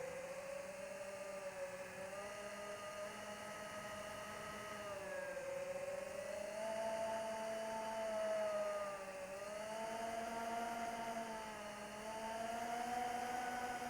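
Electric motor and propeller whine of an AtomRC Dolphin FPV plane in flight, with a light rush of air. The pitch wanders with throttle: it dips about five seconds in, climbs again around seven seconds, and dips and rises once more near the end.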